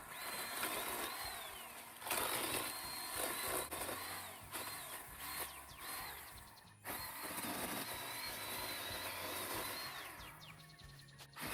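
Powered pole saw running in repeated bursts while cutting branches, its motor whine holding steady and then falling off in pitch each time the trigger is let go.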